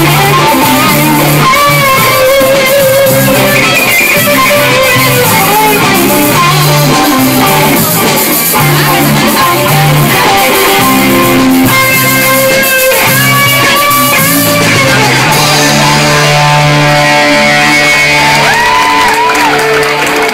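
Live amateur rock band playing loudly through a PA: electric guitar, bass guitar and drums. Near the end the band holds a long chord while the guitar bends notes, as the song winds down.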